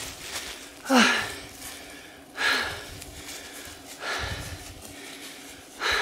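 A person panting heavily from the exertion of climbing a steep slope, with a loud breath about every one and a half seconds. The first breath ends in a short voiced gasp.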